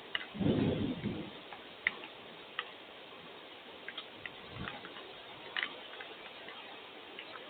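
Irregular ticks and taps of dripping rainwater over a faint steady hiss, with a short low rumble about half a second in.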